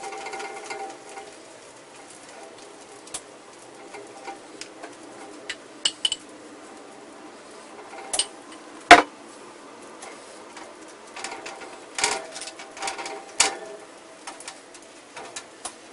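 Scattered clinks and knocks of kitchen utensils: a basting brush tapping a glass measuring cup, and skewered chicken being handled on a metal wire rack. One sharp knock about halfway through is the loudest, with a few more clinks near the end.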